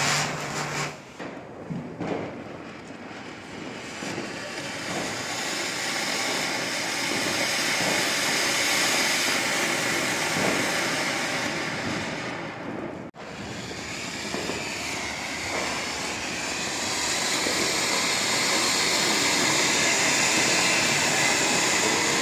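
Ground firework fountains (flower pots) spraying sparks with a steady rushing hiss. The sound cuts out for a split second a little past halfway, then another fountain's hiss carries on.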